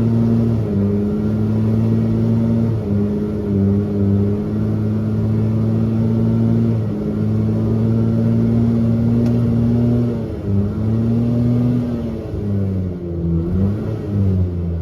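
Subaru R-2's air-cooled 360cc two-stroke twin running at raised revs. The engine speed is held steady with several brief dips, and it wavers unevenly near the end.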